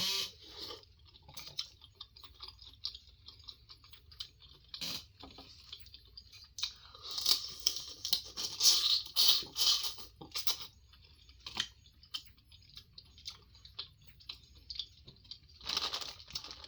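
A person chewing and eating close to the microphone: irregular wet mouth clicks and crunches, busiest about seven to ten seconds in.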